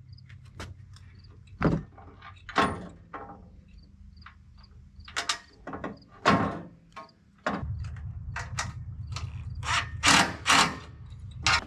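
Metal clinks and knocks of a bolt, lock nut and tools being worked on the sawmill's steel crank bracket. About seven and a half seconds in, a handheld power tool's motor starts and runs steadily for about four seconds, cutting off just before the end.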